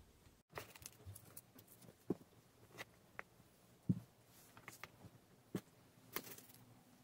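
Faint, scattered light taps and rustles as hands move plastic items and paper bedding around in a hamster cage, with one sharper knock about four seconds in.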